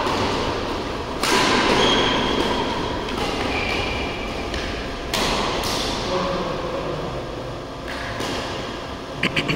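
Badminton rally: about four sharp racket strikes on the shuttlecock, spaced a few seconds apart, each ringing on in the hall. Short high squeaks come between the strikes, and a quick run of three sharp sounds comes near the end.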